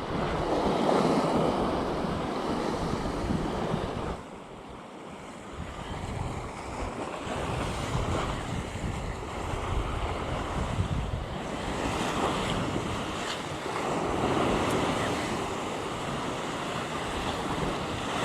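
Sea surf washing against rocks, with wind on the microphone. The wash swells and eases, dropping off suddenly about four seconds in.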